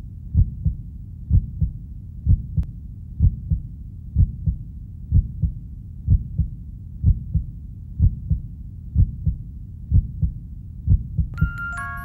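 Heartbeat: steady low double thumps, a lub-dub pair about once a second. Near the end, bell-like mallet notes of music come in over it.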